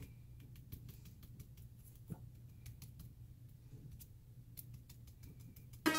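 Stiff paintbrush dry-stippling paint through a stencil onto a model road surface: faint, irregular light taps as the bristles peck at it, over a low steady hum.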